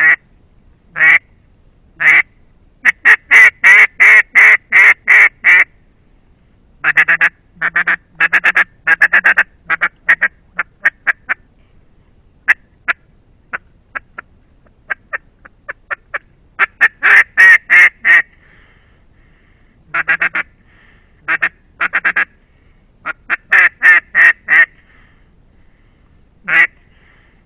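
A Russian Custom Calls duck call blown in mallard hen quacks to draw in passing ducks. It gives a few single quacks, then quick runs of about eight to ten quacks, some trailing off softer, with pauses between the runs.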